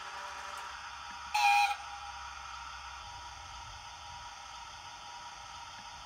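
A model railway locomotive's sound unit gives one short, loud toot of about half a second, over a steady low hiss.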